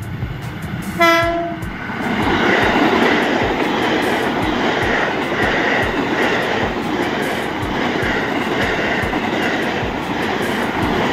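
KRL Commuter Line electric trains: a short horn blast about a second in, then a train passing close by with a loud rush of running noise and a steady rhythm of wheels clacking over the rail joints.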